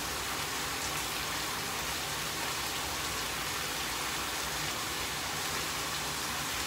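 Pork steak sizzling in a frying pan, a steady even hiss.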